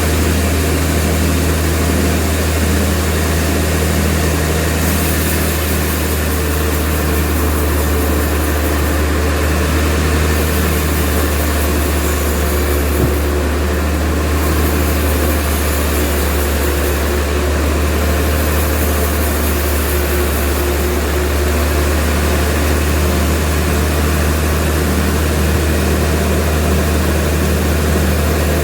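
Sawmill machinery running steadily with a loud, constant low hum, with higher hiss that comes and goes.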